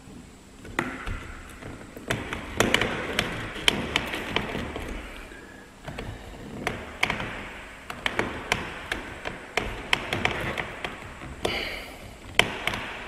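A white PVC elbow is pushed, twisted and turned by hand onto the overflow pipe fitting of a plastic water tank. Plastic on plastic makes many quick taps and knocks with scraping in between.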